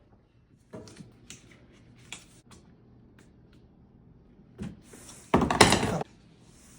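Hand work on washing-machine parts during drain-pump reassembly: scattered light clicks and knocks, then a louder burst of handling noise about half a second long near the end.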